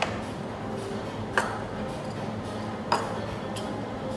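Small ceramic serving bowls with spoons in them clinking as they are set down on a table from a metal tray: two sharp clinks about a second and a half apart and a fainter one soon after, over a low steady hum.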